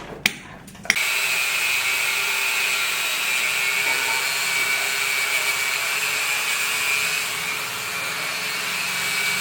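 A couple of knocks, then a power tool starts about a second in and runs steadily at one speed, a high whine over a hiss, easing slightly for a moment near the end.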